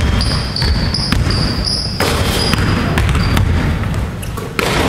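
Basketball bouncing on a hardwood gym floor, with short sneaker squeaks, over a steady low rumble.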